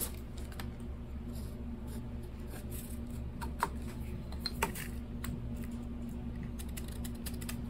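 Light clicks and scratches of a small metal scribing tool handled against a wooden handle block, two sharper clicks near the middle, over a steady low electrical hum.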